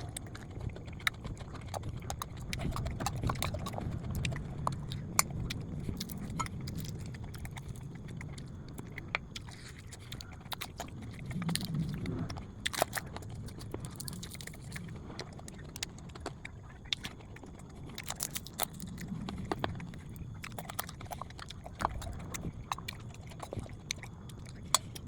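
Eating at a table: utensils clicking and clinking against a plate, with chewing, as irregular sharp clicks over a low background rumble.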